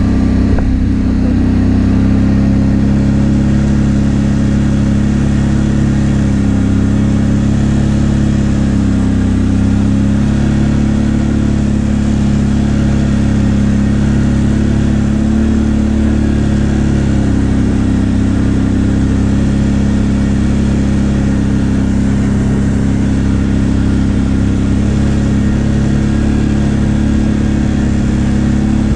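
ATV engine running at high, steady revs, its pitch wavering only slightly.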